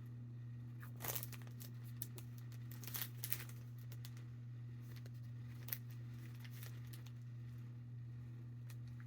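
Plastic snack wrapper crinkling in a few short, scattered bursts over a steady low hum.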